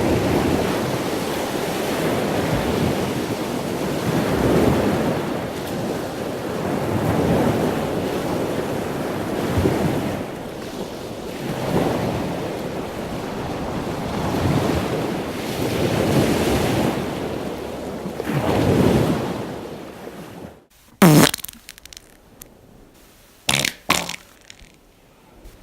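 A long rushing noise that swells and fades about every two seconds, like surf. About 21 seconds in it cuts off, and then come several short, separate fart sounds with quiet between them, the first the loudest.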